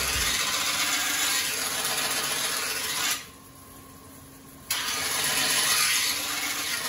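Steel blade of an Edo-style usuba knife being ground on a whetstone: a steady scraping hiss that breaks off for about a second and a half near the middle, then resumes.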